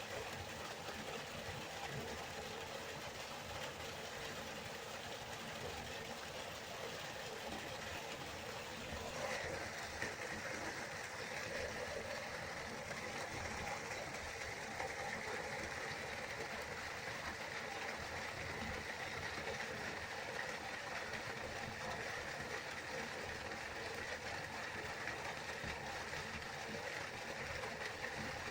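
River water flowing steadily, an even rushing sound that turns a little brighter and louder about nine seconds in.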